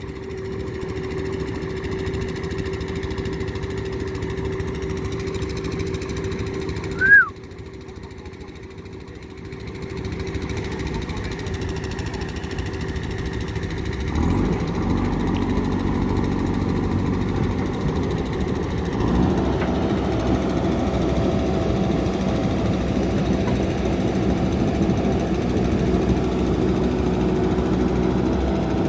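JCB backhoe loader's diesel engine running steadily, then getting louder and higher in pitch about halfway through and again a few seconds later as it works harder. About seven seconds in there is one brief, loud chirp that drops in pitch.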